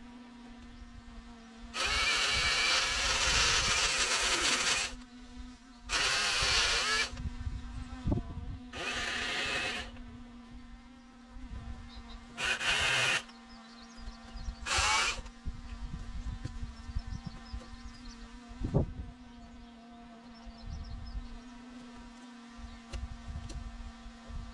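Kubota KX61-2A mini excavator running with a steady droning hum. Five loud bursts of rushing noise a few seconds long come over it, the first about two seconds in, and a single sharp knock follows near the end.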